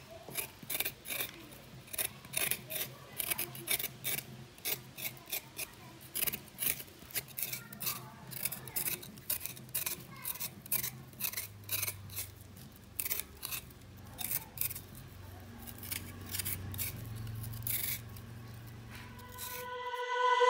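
Scraping soil and skin off a freshly dug higurala yam, many short scraping strokes at about three a second.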